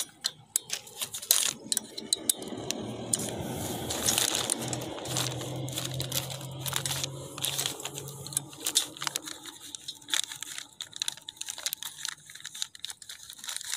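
Small metal clicks and scrapes as an Allen key works the hex bolts on the coupling of a submersible petrol-pump motor, with plastic wrapping crinkling under the handling. A low hum comes in for a few seconds midway.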